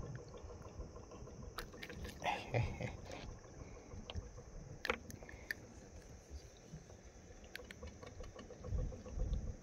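Faint handling sounds of a hook being worked out of a caught fish's mouth by hand: a few scattered small clicks and rustles over a low steady hiss. A low rumble comes near the end.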